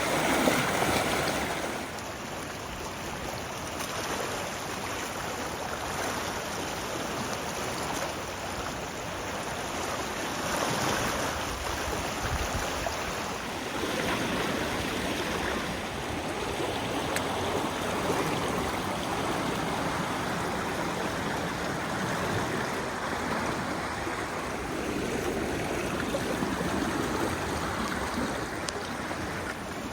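Floodwater rushing and flowing steadily, an even wash of water noise that swells and eases a little.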